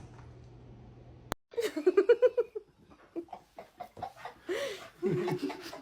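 A voice laughing in short bursts, starting just after a faint hum cuts off about a second in.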